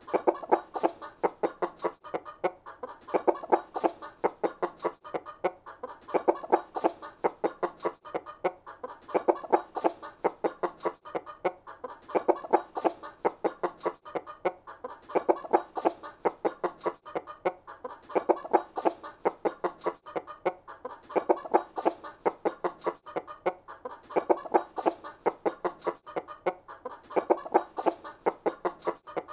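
Chickens clucking and chattering in quick runs of short calls, the bursts recurring about every three seconds like a looped recording.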